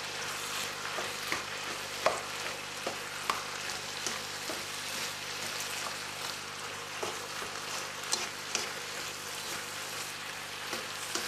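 Sliced vegetables sizzling in a frying pan as they are stirred, with the spatula clicking and scraping against the pan now and then.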